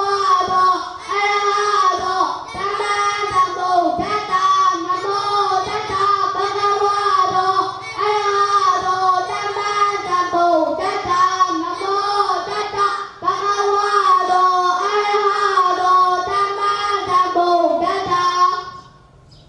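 A young novice monk chanting Buddhist verses into a microphone over a loudspeaker: a high child's voice in a sing-song recitation, short phrases on a fairly level pitch, which stops just before the end.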